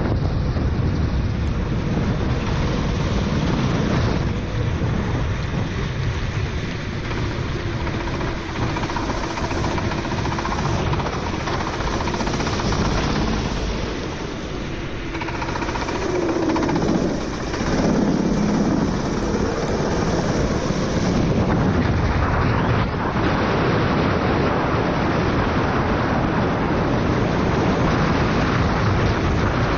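Onboard sound of a four-stroke racing kart on a wet track: heavy wind rush on the camera microphone and tyre spray over the engine, whose pitch rises and falls with the throttle.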